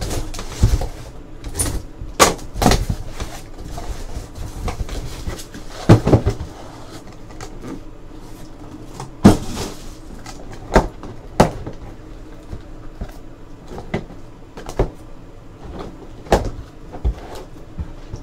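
Sealed cardboard hobby boxes being pulled out of a cardboard case and set down and stacked on a table: an irregular string of knocks, taps and cardboard scuffs.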